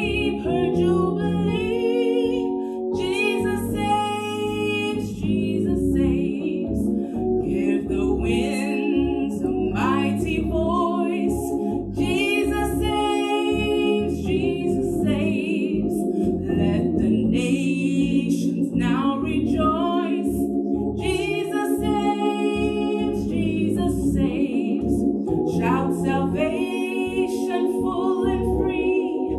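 A woman singing a hymn solo into a microphone, in long held notes with vibrato.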